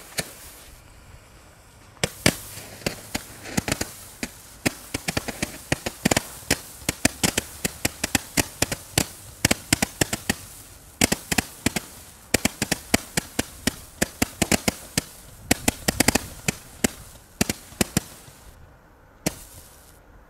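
WECO Kometensturm 100-shot star battery firing its stars one after another: sharp pops, about three to four a second, starting about two seconds in and stopping shortly before the end. It fires only 62 shots of the 100 claimed.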